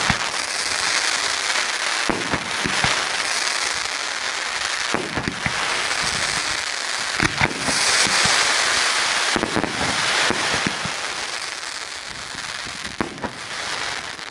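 Dragon DSO DR-500 78-shot firework cake firing: a launch thump every second or two over a steady dense rush of bursting stars, fading near the end.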